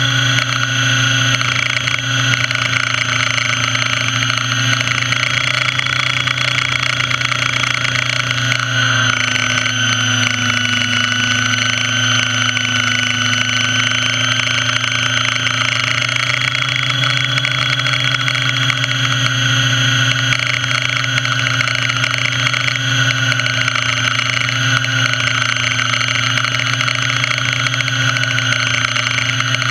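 Radio-controlled model helicopter's motor and rotor running steadily in flight, heard close up from a camera mounted on the helicopter itself. The pitch dips slightly about nine seconds in, then creeps back up.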